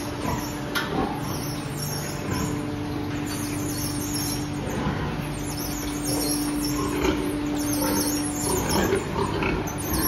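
Sows in metal gestation crates grunting and squealing in a pig barn. A steady mechanical hum runs underneath and stops shortly before the end.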